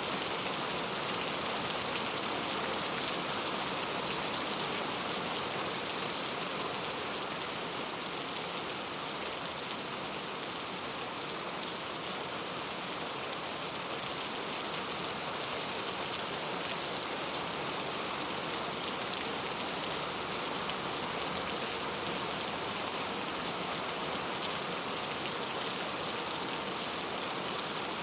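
Heavy rain falling steadily, an even hiss of countless drops with no separate impacts standing out.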